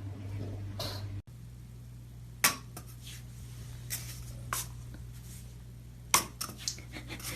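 Scattered sharp knocks and clinks of household objects being handled, the loudest about two and a half seconds in and about six seconds in, over a steady low hum.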